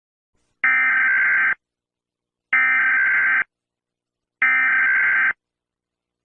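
Emergency Alert System SAME header: three short bursts of buzzing two-tone digital data, each just under a second long and about two seconds apart. The bursts encode the alert's origin, event type and area, and are sent three times before the attention tone.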